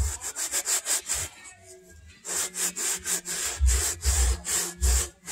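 Hand brush scrubbing the suede of a Clarks boot in quick back-and-forth strokes, about six a second, pausing for about a second partway through before the scrubbing resumes.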